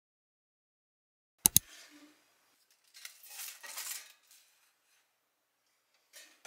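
About a second and a half in, two sharp clicks close together, then the scrape and rustle of a slice of toast being slid off a toaster oven's rack onto a plate, with a small clack near the end.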